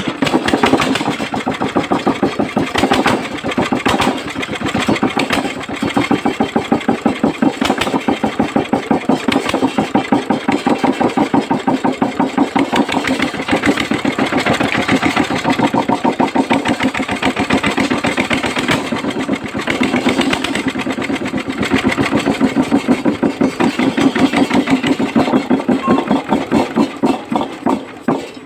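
Restored small engine running steadily at idle with an even pulsing beat, after its carburettor has been cleaned.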